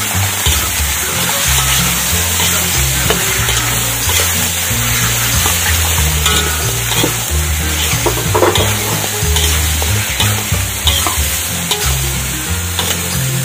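Raw chicken pieces sizzling in hot oil in a steel wok while being stirred and turned with a metal spatula, the blade scraping against the wok every so often.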